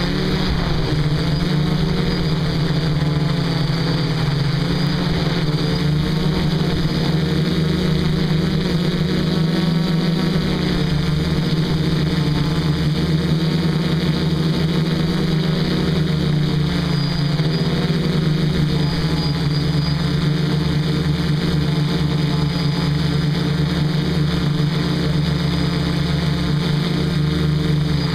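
DJI F450 quadcopter's four electric motors and propellers buzzing steadily, heard close from the camera on the frame, with the pitch wavering slightly as the motor speeds are adjusted in flight.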